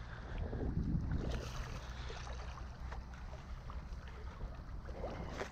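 A hooked trout splashing at the water's surface beside a dock as it is brought in, over a low rumble of wind on the microphone.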